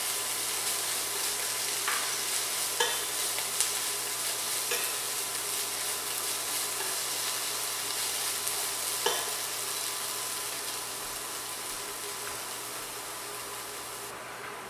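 Celery and dried tofu strips sizzling as they are stir-fried in a pot with a wooden spatula, with a few light knocks of the spatula against the pot. The sizzle eases in the last few seconds and drops off near the end as the burner is turned off.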